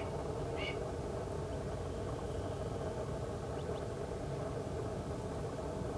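Steady low background rumble, with two short high bird call notes in the first second.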